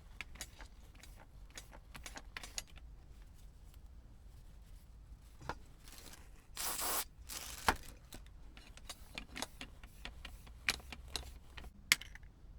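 Small plastic clicks, taps and rattles of a Blu-ray remote control being handled and worked on, with a short hiss of a little under a second about halfway through and two sharper clicks later on.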